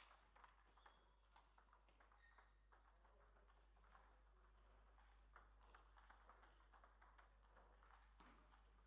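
Faint, irregular clicks of table tennis balls striking paddles and tables, with a few short squeaks, over a steady low hum.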